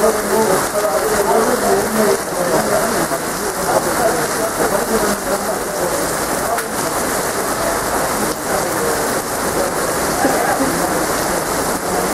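Heavy rain pouring down steadily onto paved street and pavement, a dense, even hiss of splashing drops.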